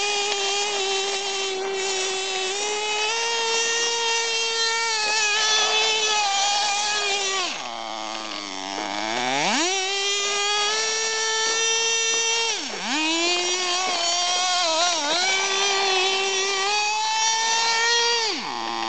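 Small two-stroke engine of a gas-powered RC car running at high revs. About eight seconds in it drops to low revs and then revs back up. It dips briefly again a few seconds later and falls off near the end.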